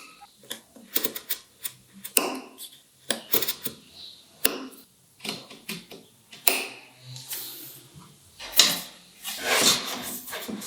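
Irregular wooden clicks and knocks from hand work on wood pieces, with a few short rasping strokes near the end.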